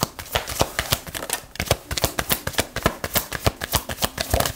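A deck of reading cards shuffled by hand, overhand, with one hand dropping cards onto the pack in the other. The cards make a quick, uneven patter of soft slaps and clicks.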